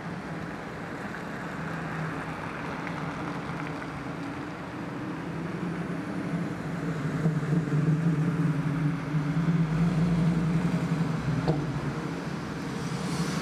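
Street traffic: a motor vehicle's engine running with a steady low hum, growing louder in the second half.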